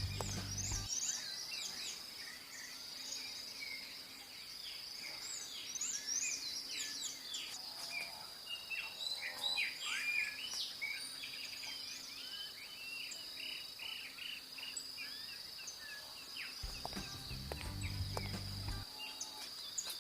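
Outdoor nature ambience: many birds chirping over a steady, high-pitched insect drone like crickets. A low rumble comes in briefly near the end.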